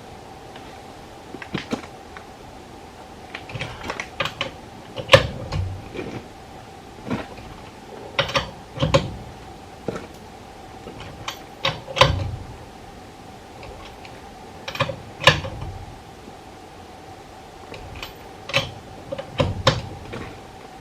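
Irregular metallic clicks and clunks from hand tools as a fastener on the car is worked tight, some single and some in short clusters, over a faint steady hum.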